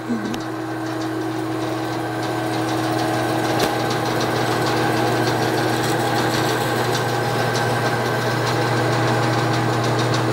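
Bandsaw running and resawing a wooden drawer piece: a steady motor hum, with the cutting noise growing louder over the first few seconds as the wood is fed into the blade.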